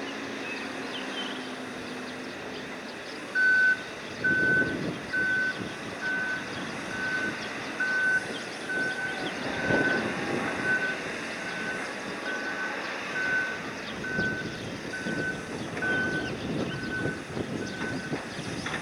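Electronic warning beeper sounding a steady single-pitched beep about once a second, starting a few seconds in, over a background of machinery rumble and wind.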